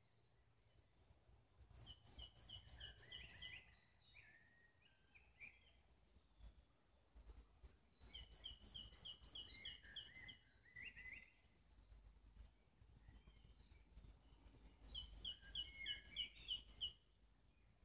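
A songbird singing three similar song phrases a few seconds apart: each is a quick run of about six repeated high notes that ends in a lower, falling flourish. Fainter chirps come between the phrases.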